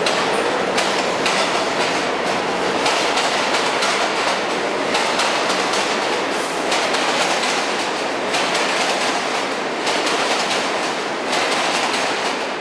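Kawasaki R62 subway train pulling out of the station and picking up speed past the platform: a loud, steady rush of steel wheels on rail, broken by irregular clacks as the wheels cross rail joints.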